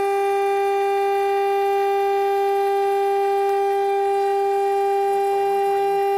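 CNC router spindle milling 5 mm aluminium sheet with an end mill, a loud steady whining tone with overtones that holds unchanged pitch under the cut.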